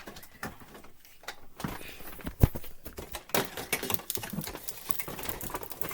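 Boxes being shifted by hand: irregular knocks, scrapes and rustling, with one heavier thump about two and a half seconds in.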